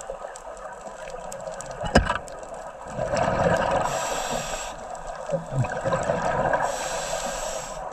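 Underwater sound of a scuba diver's regulator breathing, with two long bubbling rushes of exhaled air. A single sharp knock comes about two seconds in.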